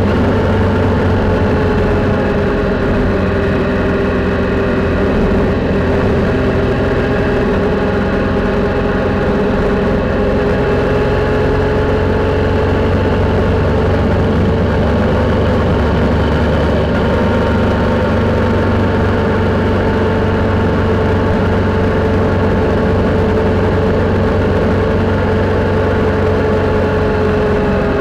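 Triumph Sprint motorcycle's three-cylinder engine running on the move, heard from a camera mounted on the bike. A steady engine note that rises and falls a little, dipping slightly near the end.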